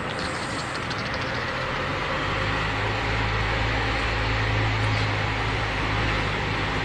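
A low engine hum rises out of steady background noise about two seconds in, holds, and eases off near the end.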